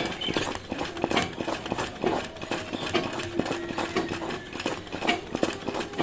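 Ordinary domestic sewing machine running, a fast steady clatter of the needle and feed mechanism as it stitches appliqué fabric, with a low hum that comes and goes under it.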